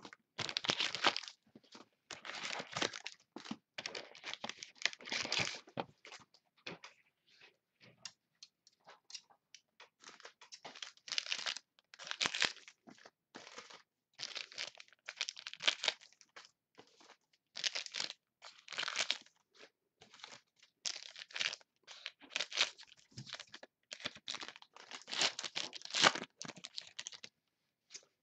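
Foil wrappers of 2011 Gold Standard football card packs being torn open and crinkled by hand, in irregular bursts of rustling and tearing, with some quieter pauses between.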